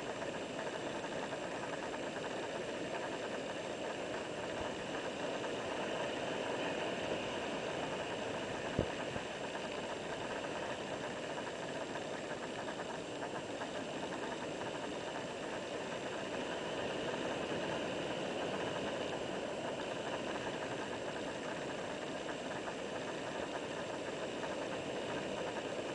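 Steady roar of breaking ocean surf and whitewater washing over shoreline rocks, with one sharp click about nine seconds in.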